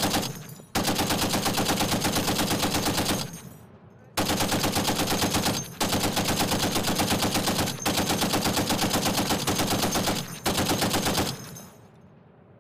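M2 .50-calibre heavy machine gun firing from its tripod: a single shot, then long bursts at a rapid, even rate. After a pause of about a second, fire runs almost unbroken for seven seconds with only brief gaps, and the last burst fades out in echo.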